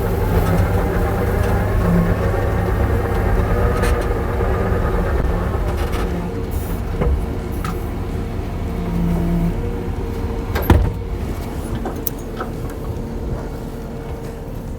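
Kubota skid steer's diesel engine running steadily while it slowly reverses, its sound gradually fading in the second half. A single sharp knock comes about ten and a half seconds in.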